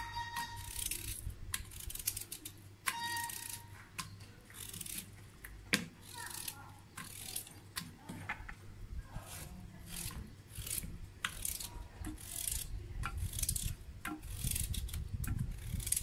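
A knife slicing through a hand-held raw potato, a short crisp cut about once a second, with the rounds dropping into an aluminium pot.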